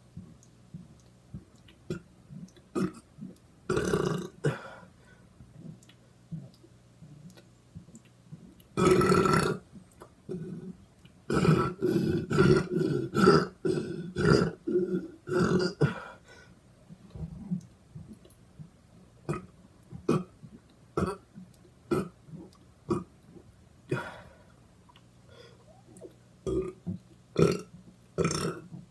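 A person burping over and over on purpose: a few long burps, a rapid string of short burps in the middle, and smaller burps scattered between.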